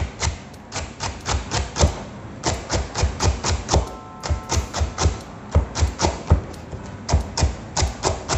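Chef's knife rapidly chopping celery on a cutting board: a steady run of sharp knocks, about five a second, broken by short pauses.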